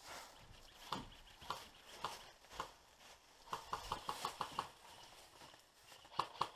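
Airsoft guns firing: single shots about half a second apart, then a rapid burst of about eight shots starting about three and a half seconds in, and a few more shots near the end.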